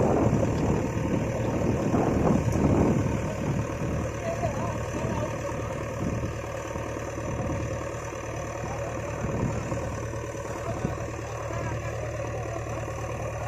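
JCB 3DX backhoe loader's diesel engine running, louder for the first few seconds, then settling steadier and quieter.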